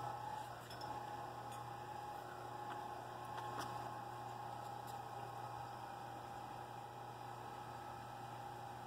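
Power Caster PC1 electric trailer dolly running under load as it moves a boat trailer: a steady motor whine over a low hum. The whine breaks off briefly about a second in, with a few faint clicks.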